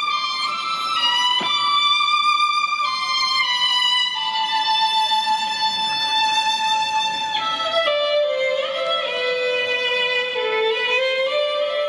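Violin music: a slow melody of long held notes that change every second or two. A single sharp click sounds about a second and a half in.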